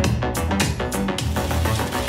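Electronic dance music with a heavy bass line and a steady beat of about four hits a second, played back through a portable Bluetooth speaker for a sound test.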